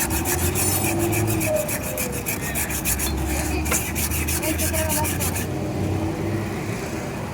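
Emery paper rubbed back and forth on a motorcycle brake part in quick, even strokes, several a second, stopping about five and a half seconds in. The sanding freshens the braking surface so the brake grips well.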